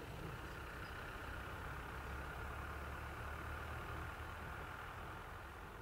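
Steady low rumble of a distant engine, easing slightly near the end.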